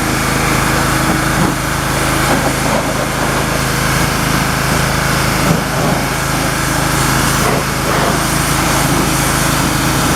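Pressure washer running steadily: a constant motor hum under the hiss of the high-pressure water jet spraying onto a riding lawn mower.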